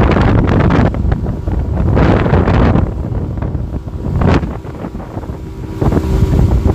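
Wind buffeting the microphone in irregular gusts, a heavy low rumble that swells and eases.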